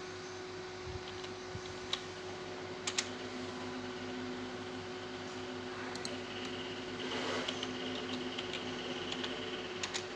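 Computer mouse clicking several separate times, each click sharp and short, over a steady electrical hum.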